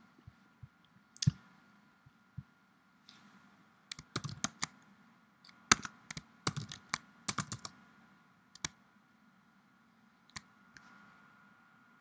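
Computer keyboard typing in short quick runs as a username and password are entered, with a few isolated clicks before and after.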